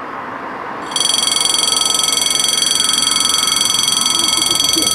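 The level crossing's two warning bells start ringing about a second in, a loud, rapid, high-pitched ringing that holds steady: the start of the crossing's warning for an approaching train, with the barriers still up.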